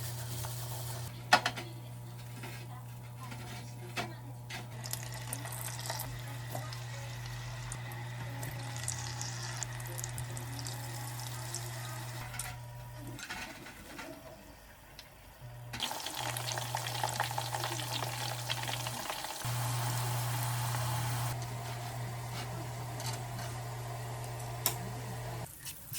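Food sizzling and frying in a pan while it is stirred, with a few clicks of the utensil against the pan. The frying gets louder for a few seconds past the middle. A steady low hum runs underneath.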